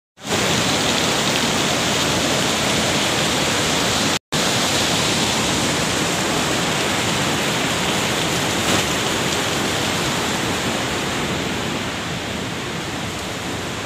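Steady rush of fast-flowing water. It drops out for an instant about four seconds in, then carries on.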